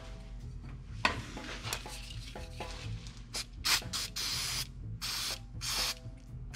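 Light rubbing and handling noise with a few clicks, then, from about four seconds in, several short bursts of pressurized spray hissing, each under a second long.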